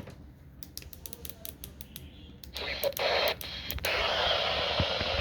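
A quick run of small clicks, then a radio receiver's static hiss comes on about two and a half seconds in and settles into a steady hiss near the end.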